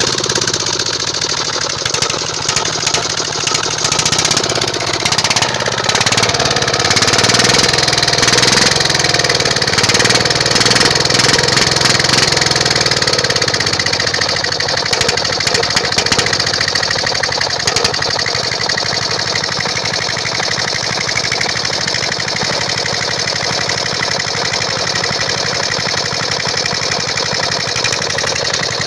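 Small single-cylinder F170 4 hp diesel engine running with a steady diesel clatter, a little louder from about six to seventeen seconds in.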